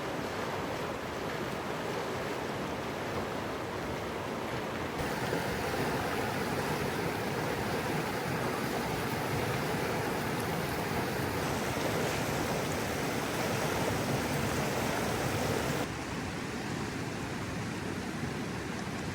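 Steady rush of flowing river water. The sound shifts abruptly three times, as at cuts between shots.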